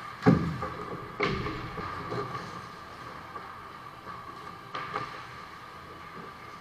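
Ice hockey play on a small rink: a loud hard knock about a quarter second in that rings briefly, a second knock about a second later, and a fainter one near five seconds, from puck, sticks and skaters striking the boards, net and ice. A steady hum runs underneath.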